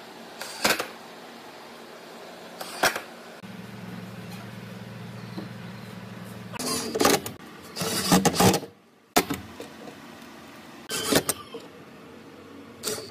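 Wooden cabinet door and steel concealed hinges knocking and clattering as the door is fitted and hung: single sharp knocks about a second in and near three seconds, a longer run of clatter around seven to eight seconds, and more single knocks later. A steady low hum runs for a few seconds in the middle.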